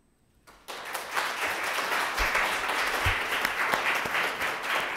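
Audience applauding, starting about half a second in after a brief hush.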